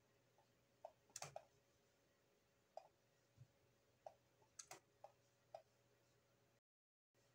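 Faint, scattered computer mouse clicks, about a dozen at irregular intervals, some in quick pairs, over a low steady electrical hum. The sound cuts out completely for about half a second near the end.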